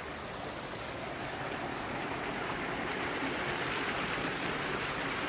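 Forest stream rushing over rocks in small cascades: a steady rush of water that grows a little louder over the first couple of seconds.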